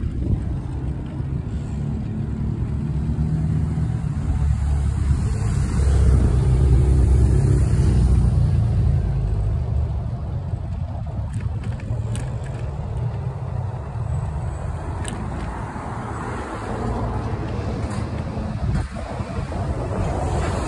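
Low rumble of road traffic on a town street, swelling loudest about six to eight seconds in, with a few light clicks later.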